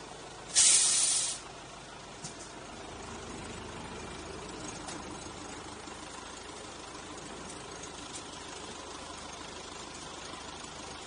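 Narrow-gauge tourist train with a short, loud hiss lasting under a second, about half a second in. Its engine and running gear then rumble steadily as it moves off, with a few faint ticks from the wheels.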